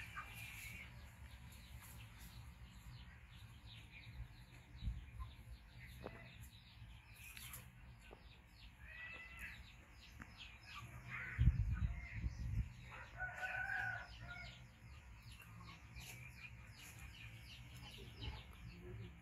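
A rooster crowing once, about two-thirds of the way through, among a few short chicken calls. A dull low thump comes just before the crow.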